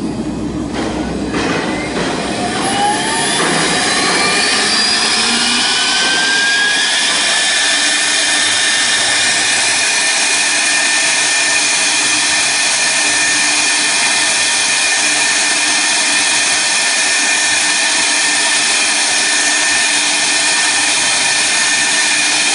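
CNC router spindle spinning up: a whine that rises in pitch over the first several seconds, then holds steady at full speed with a strong airy hiss.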